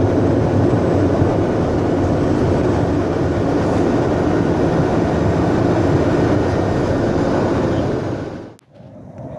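Pilatus PC-12 NG's single Pratt & Whitney PT6A turboprop and propeller running loud and steady, heard from inside the cockpit while the aircraft is on the runway. Near the end it cuts off abruptly to a much quieter outdoor background.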